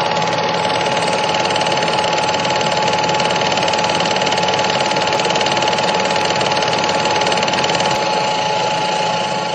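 Steady mechanical running noise with a constant whining tone through it, like a machine in motion, beginning to fade out near the end.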